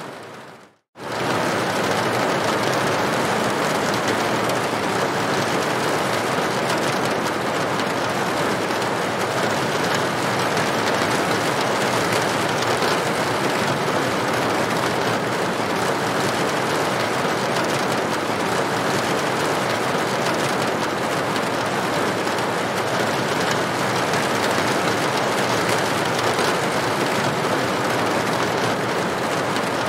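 Steady rain falling on a corrugated tin roof: an even, dense patter. The sound drops out briefly at the start and comes back abruptly about a second in.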